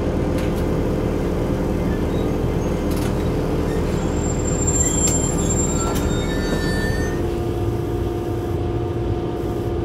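Steady running noise in the cab of a Siemens EuroSprinter electric locomotive under way with a freight train: a low rumble with a constant electric hum, which drops slightly in pitch about seven seconds in, and a few light clicks.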